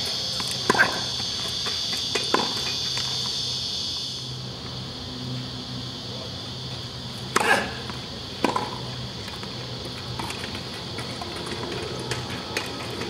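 Tennis balls being struck and bouncing on a hard court: a handful of sharp pops at irregular intervals, the loudest about seven seconds in, over a steady high-pitched hiss and a low hum.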